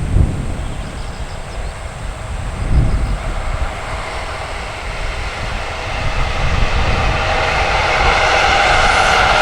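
Freight train approaching on the line, its rail and running noise growing steadily louder through the second half. Wind gusts on the microphone in the first few seconds.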